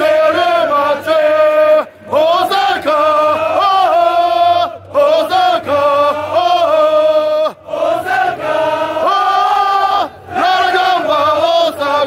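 Football supporters' chant sung by male voices in drawn-out melodic phrases, with a short breath gap about every three seconds.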